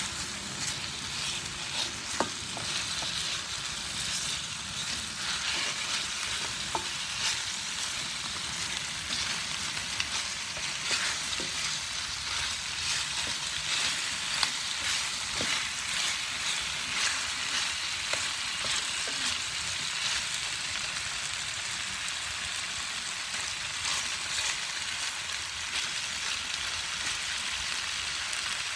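Chicken drumsticks frying in oil in a non-stick electric skillet: a steady sizzle with constant small crackles and spits. A few sharper clicks stand out, as wooden chopsticks tap the pan while turning the pieces.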